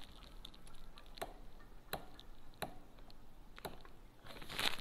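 Four single clicks, a little under a second apart, from the adjustment turret on an air rifle's tube sight being turned step by step, then a short rustle of handling near the end.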